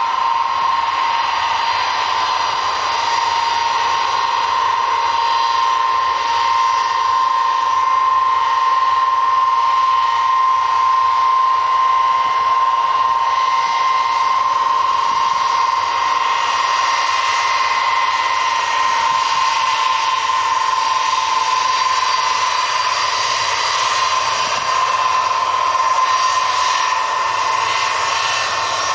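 Ilyushin Il-76MD's four turbofan engines running at taxi power as the freighter rolls past: a steady high whine over a rushing hiss.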